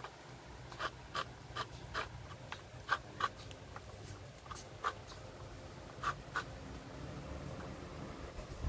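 Small dog eating from a plastic bowl: irregular short clicks of chewing and mouth smacking, two or three a second, growing sparser in the second half.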